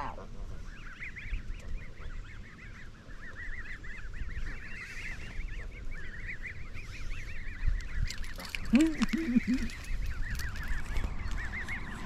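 A family of Canada geese with goslings calling, a steady chatter of many short, high peeps. A few lower calls come in about nine seconds in.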